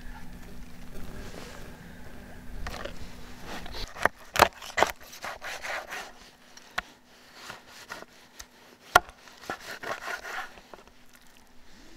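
Kitchen knife cutting raw chicken on a wooden cutting board: a few sharp knocks on the board, three close together about four seconds in and one near nine seconds, with softer scraping and rubbing between them.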